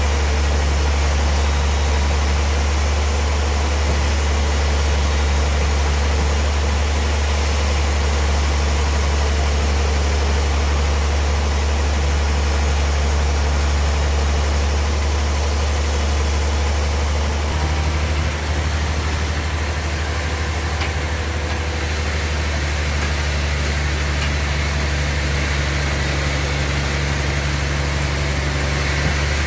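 Sawmill machinery running steadily: a loud, constant low engine hum with a noisy wash above it, its tone shifting slightly about two-thirds of the way through.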